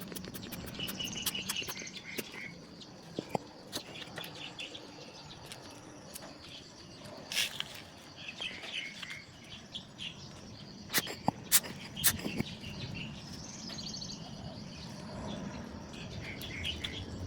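Small birds chirping and twittering in bursts throughout, with a few sharp clicks, the loudest a cluster about 11 to 12 seconds in.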